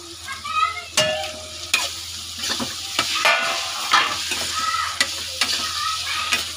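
Slotted metal spatula stirring chopped tomatoes into sizzling fried grated onion in a kadai: a steady frying sizzle, with scraping and about half a dozen sharp clicks of the spatula against the pan.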